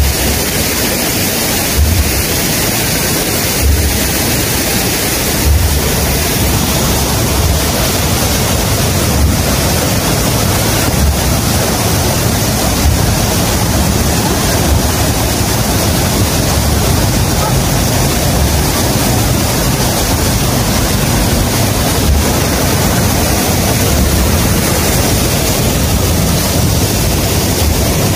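Loud, steady rush of falling water, unbroken throughout. A few dull low thumps come in the first six seconds.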